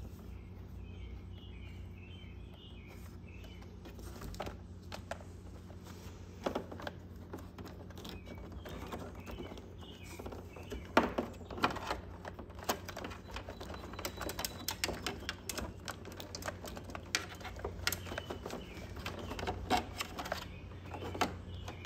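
Irregular clicks and light knocks of hands handling the plastic battery cover, wiring and terminal hardware in a Honda Super Cub C125's battery compartment, growing busier after about ten seconds. Birds chirp faintly in the first few seconds, over a steady low hum.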